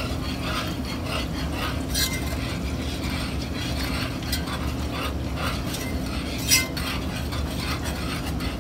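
Metal wire whisk stirring thick gravy in a cast iron skillet: a continuous rhythmic scraping and slapping against the pan, over a steady low hum. A sharper clink of metal on the pan comes about two seconds in and a louder one about six and a half seconds in.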